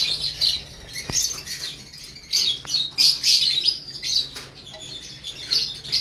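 Lovebirds chirping in their cages, a busy chatter of short high calls overlapping one another, loudest around the middle.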